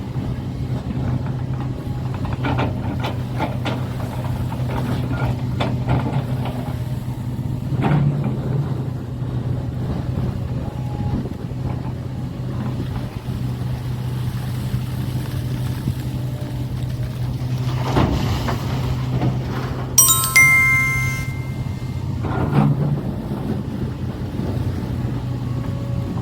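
Heavy diesel machinery runs steadily at a coal loading site, with scattered knocks and clanks of coal being loaded. About twenty seconds in, a horn-like tone sounds for about two seconds.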